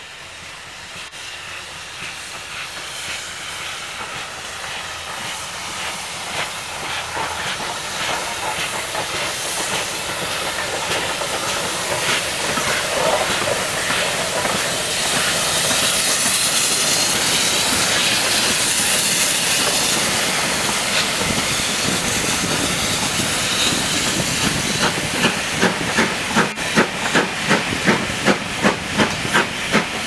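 GWR Manor class 4-6-0 steam locomotive approaching and passing with a steady hiss of steam that grows louder toward the middle. From about 25 s on, rhythmic clanks come at about two a second as the train's wheels run over the rail joints.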